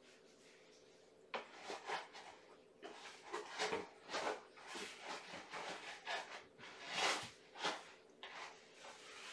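Cat litter being scooped and cleared from a litter box: a run of irregular scraping and rustling strokes that starts about a second in.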